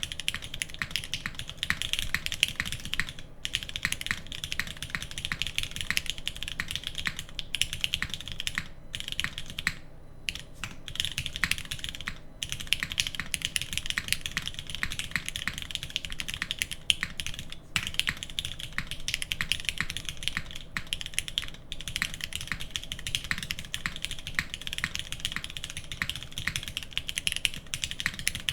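Fast continuous typing on a mechanical keyboard with linear Cherry MX Black switches, aluminium plate and GMK doubleshot ABS keycaps, with brief pauses in the stream of keystrokes.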